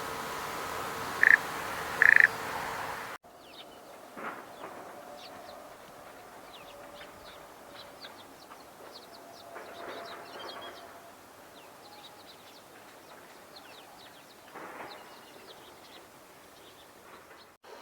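Small songbirds calling and singing: two loud, short chirps close by in the first few seconds, then a quieter, continuous high twittering of thin rapid notes, broken three times by a louder, rougher call.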